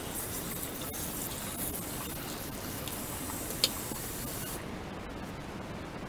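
Tap water running from a washbasin faucet and splashing over plastic vacuum-cleaner dust-case parts being rinsed, with one sharp click about three and a half seconds in. The water stops about four and a half seconds in.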